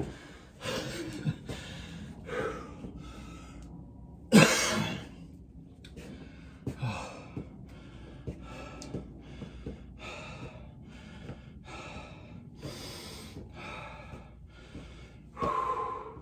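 A man breathing hard from exercise, with short forceful breaths about once a second. One much louder gasp comes about four seconds in.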